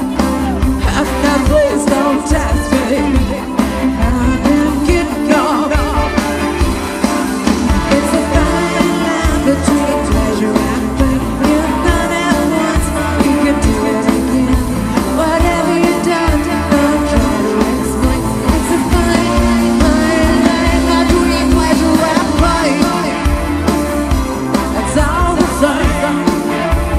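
Rock song with a singer over a band and a steady beat.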